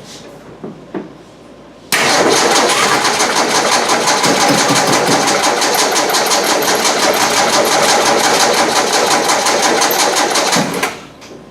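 Carbureted engine turned over by its starter, unprimed, for about nine seconds. It starts suddenly about two seconds in, keeps an even rhythm, and stops near the end without the engine keeping running, which the owner takes as a sign the carburetor needs an overhaul.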